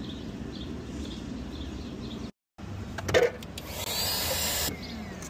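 A knock, then a small motor-driven tool whirring for about a second, its pitch falling, before it cuts off suddenly.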